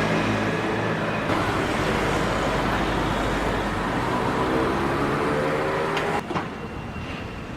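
A motor vehicle running close by: a loud, steady engine or motor sound under traffic noise, its pitch rising shortly before the sound drops abruptly to quieter street noise about six seconds in.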